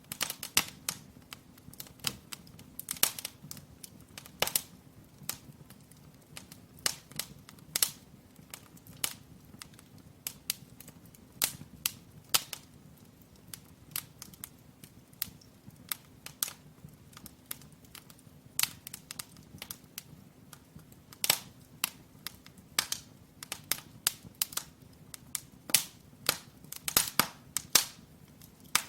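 Firewood burning in a brick fireplace, crackling with irregular sharp pops of varying loudness over a faint steady low hum.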